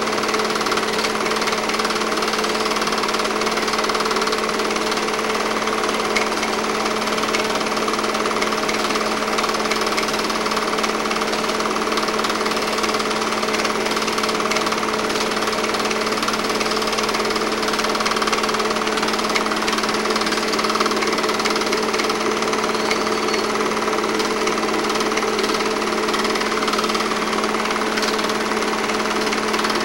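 8mm film projector running steadily: a rapid mechanical chatter over a constant hum, with no change throughout.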